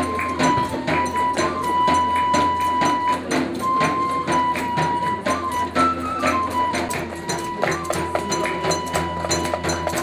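Live traditional folk tune: a vertical wooden flute plays a melody that steps up and down in pitch, over a fast, steady rhythm of sharp hand-percussion taps.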